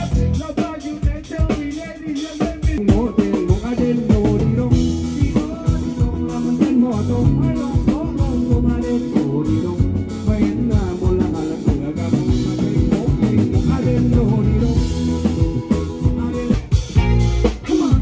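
Band music with a drum kit and a steady beat, guitar and singing.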